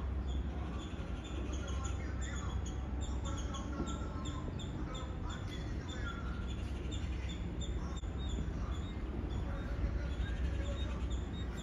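Many small birds chirping, quick short high notes one after another, over a steady low rumble.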